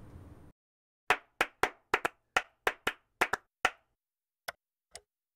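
A run of about eleven sharp handclaps in a quick, syncopated rhythm, followed by three softer, sparser claps: an audio logo sting for the closing brand card.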